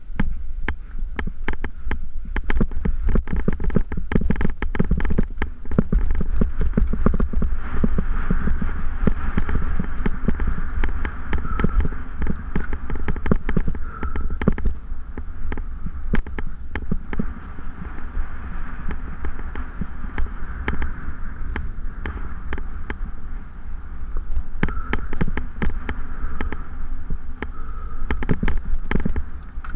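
Mountain bike rattling and clattering over a rough, rutted dirt descent, with many sharp knocks from the bumps, under steady wind buffeting on the camera microphone.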